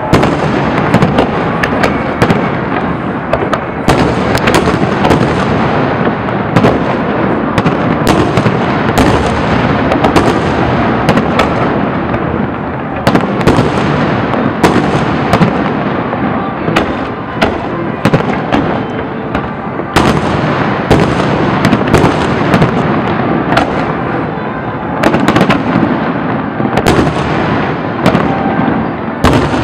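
Fireworks display: aerial shells bursting in quick succession, many sharp bangs close together over a continuous din.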